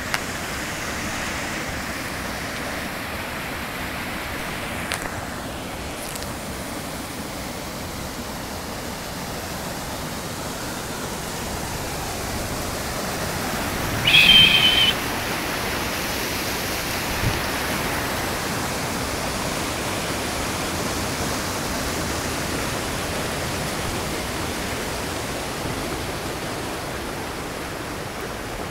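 Swollen river in flood, its fast water rushing steadily. About halfway through a brief high-pitched sound cuts in over it, followed a few seconds later by a small thump.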